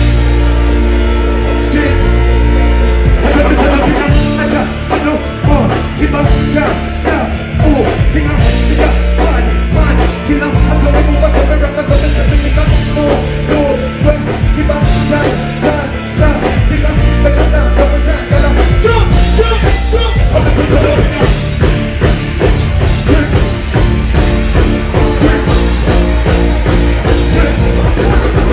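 Loud dancehall music from a live show, with heavy bass; a held chord pattern gives way to a busier beat about three seconds in.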